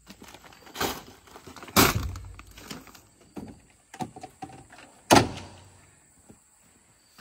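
Heavy feed bags thudding down into a utility vehicle's cargo bed, the loudest about two seconds in, with a few lighter knocks as plastic jugs are set in. About five seconds in, the tailgate slams shut with one loud bang.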